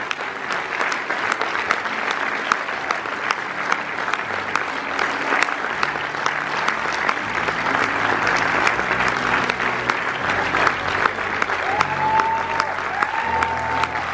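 Theatre audience applauding steadily. About halfway through, the band's music comes in underneath the clapping.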